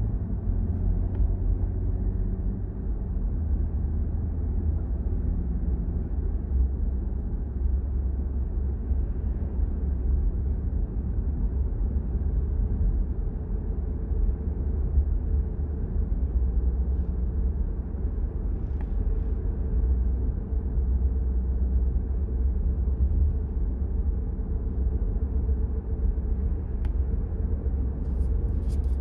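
Steady low rumble of a car driving at road speed: tyre and engine noise heard from inside the cabin.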